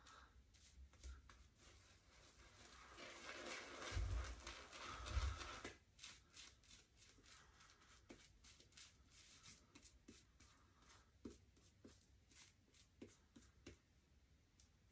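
Faint wet-shaving sounds. For about three seconds there is soft rubbing of a shaving brush working lather, with two low bumps. Then comes a long run of short, quiet scraping strokes of a Merkur 34C double-edge safety razor across lathered stubble, several a second.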